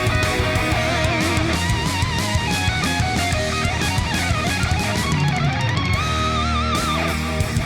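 Rock background music led by an electric guitar playing sustained notes that bend and waver in pitch.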